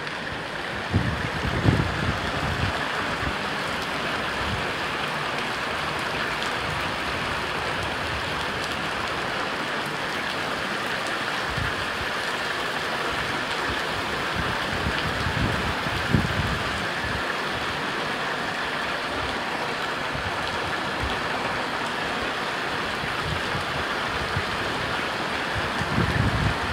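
Muddy floodwater running along a street, a steady rushing hiss. A few low thumps hit the microphone about a second in, midway through and near the end.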